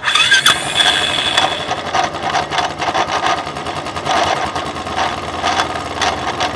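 Royal Enfield Classic 350 BS6 single-cylinder engine just started on the electric starter and idling, with an irregular mechanical clatter and ticking over the engine note. This is the kind of noise owners of this model complain of, which the mechanic puts down to the starter's one-way (sprag) clutch and the cam gears.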